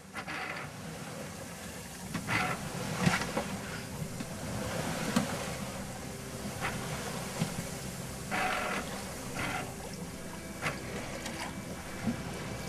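Wind and water rushing past a Targa 96 sailing yacht under way, a steady noisy wash with a few short louder splashes and knocks as waves hit the hull.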